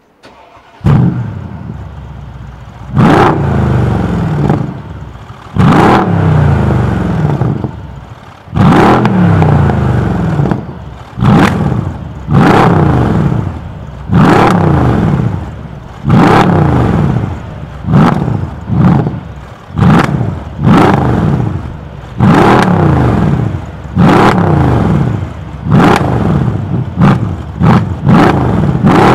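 Mercedes R231 SL63 AMG's twin-turbo V8 through a MEC Design aftermarket exhaust, stationary. It starts up about a second in and settles to idle, then is revved in about fifteen blips, each rising sharply and falling back to idle, the blips coming quicker and shorter near the end.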